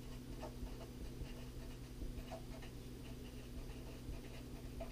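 Felt-tip marker writing on paper: faint, short squeaks and scratches as the letters are written in quick strokes.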